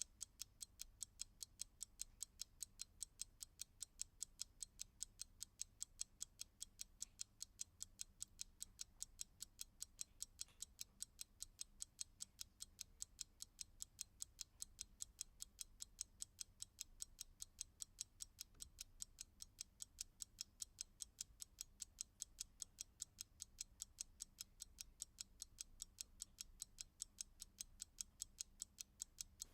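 Clock ticking: a fast, perfectly even train of faint, crisp ticks, several a second, over a low background hum.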